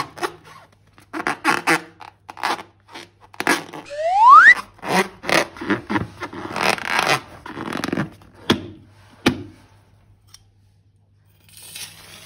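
Slime being squeezed and worked by hand: a quick series of wet crackling squelches and clicks, with one short rising squeak about four seconds in. It goes quiet after about nine seconds.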